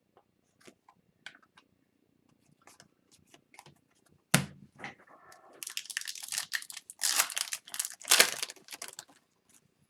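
A few light clicks of cards being handled, a sharp knock about four seconds in, then a hockey card pack's foil wrapper being torn open and crinkled for about three seconds.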